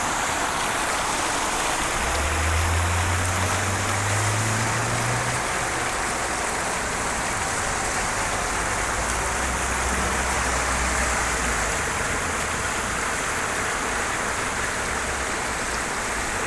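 Steady rain falling and splashing, a dense even hiss. A low hum rises slightly and fades about two seconds in, and a deeper hum comes and goes near the middle.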